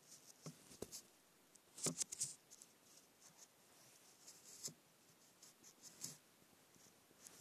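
Faint, irregular scratching and tapping, loudest in a quick cluster of scrapes about two seconds in.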